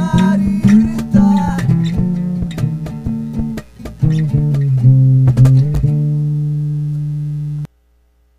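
Closing bars of a psychedelic blues-rock song: guitar and bass guitar play a run of plucked notes, pause briefly a little past halfway, then ring out on one final held chord that cuts off abruptly near the end.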